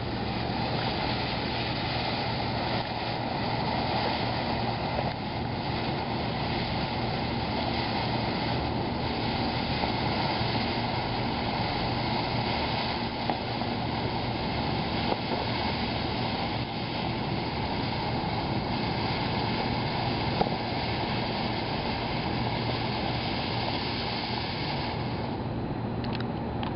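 A long-burning ground firework hissing steadily for over twenty seconds, with a few sharp pops, fading in its upper hiss near the end.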